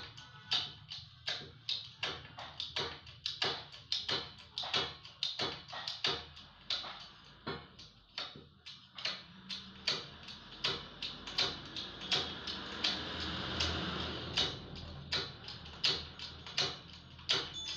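Hydraulic bottle jack being pumped by hand, clicking regularly about two to three times a second as it presses a submersible motor's stator coil into its casing. A rushing, scraping sound swells briefly about two-thirds of the way through.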